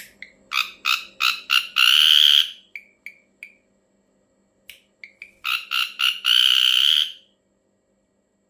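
Ashy drongo giving harsh, rasping calls in two phrases: each a quick run of four or five short notes ending in a longer drawn-out note, with a few soft short notes between the phrases.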